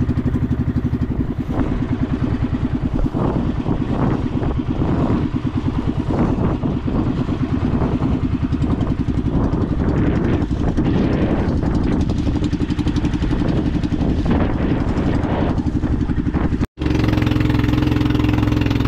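Motorcycle engine running under way, a fast, even pulsing beat with shifting load. Near the end it cuts out abruptly for an instant, then returns as a steadier note.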